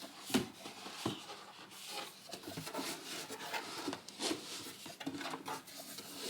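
Cardboard packaging being handled and unpacked: irregular rubbing and rustling with scattered light knocks.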